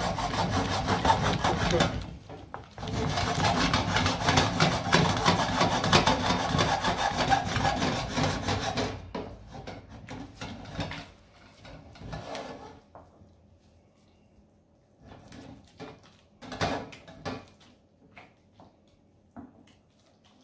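Wooden spoon stirring and scraping risotto in a stainless steel pan, beating in butter at the end of cooking (mantecatura). Fast, continuous strokes for the first nine seconds with a short break about two seconds in, then softer, scattered strokes.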